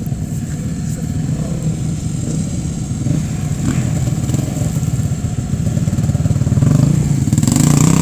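Engines of several off-road 4x4s idling together in a low, pulsing rumble, swelling louder about seven seconds in.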